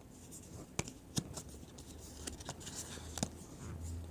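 Baseball trading cards being handled and flipped through: faint rustling of card stock with a few soft clicks as cards are moved.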